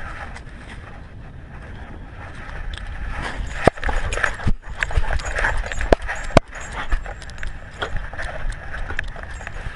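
Dog moving about with a GoPro Hero3 strapped to its collar: the camera rubbing and rustling against the dog, with a few sharp knocks about four and six seconds in.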